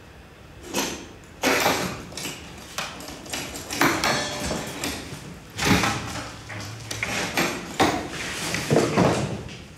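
A door being opened and a man walking in: a string of irregular knocks, thuds and scrapes that starts about a second in and dies away just before the end.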